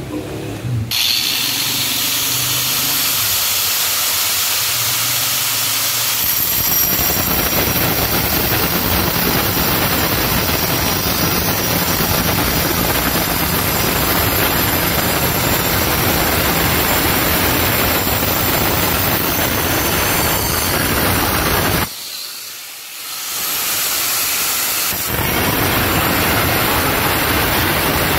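Angle grinder with a tile-cutting disc running up to speed, then cutting a straight line into a floor tile with a steady, loud grinding hiss. The cut eases off briefly about three-quarters of the way through, then carries on.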